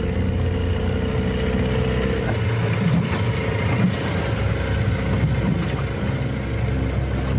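Motorboat engine running steadily at cruising speed.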